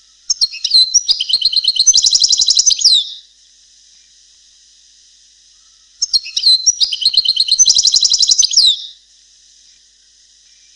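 European goldfinch song in the Palestinian style, played as a tutoring recording for young birds. Two phrases of rapid twittering trills, each about three seconds long, the second starting about six seconds in, over a steady hiss.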